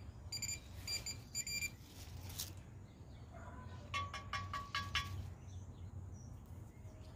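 Handheld metal-detecting pinpointer beeping on a target in the dig hole: three short high beeps in the first two seconds, then a quick run of lower pulsing beeps about four seconds in as the probe closes on the metal.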